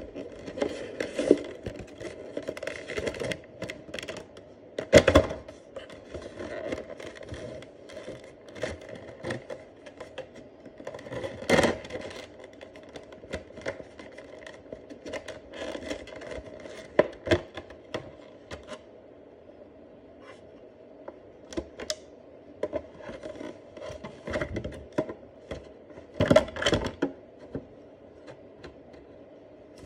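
Cardboard box and moulded plastic packaging being handled, with irregular clicks, scrapes and rustles as the plastic tray holding a device and adapter is lifted out. Louder knocks come about five seconds in, near the middle and near the end.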